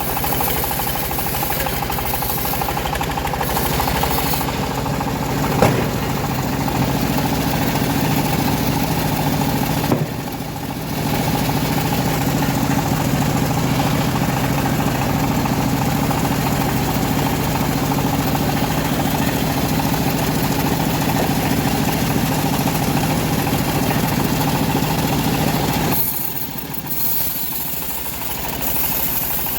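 Engine of a homemade bandsaw sawmill running steadily as the blade saws through a teak log, with a sharp knock about six seconds in. The sound drops in level for the last few seconds.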